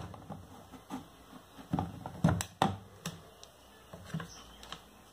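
Scattered light clicks and taps as a small electrolytic capacitor and multimeter test leads are handled, a few separate ticks about a second apart, the sharpest a little past the middle.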